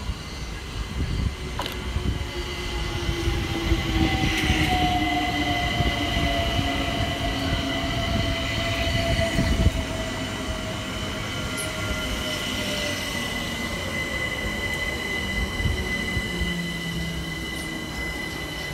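London Overground Class 378 Capitalstar electric train arriving and slowing. The whine of its motors falls in pitch as it brakes, over a rumble, with a steady high-pitched squeal.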